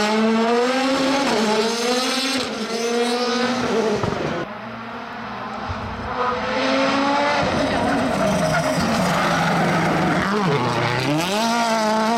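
Rally car engines at speed, the note climbing, dropping and climbing again with gear changes and lifts off the throttle. About four and a half seconds in it cuts suddenly to a quieter, duller stretch before a loud engine note returns.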